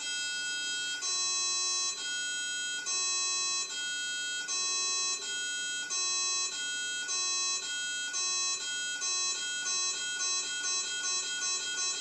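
Electronic pacing beeps of a vestibular autorotation test (VAT) system, alternating between two pitches. They start about one a second and speed up steadily to several a second, setting the beat for the patient's head movements.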